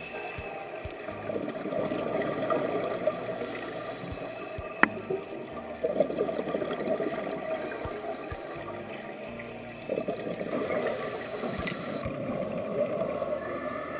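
Scuba diver breathing through a regulator, heard underwater: short hissing inhalations alternating with longer spells of exhaled bubbles every few seconds, with one sharp click about five seconds in. Faint humpback whale song sits in the background.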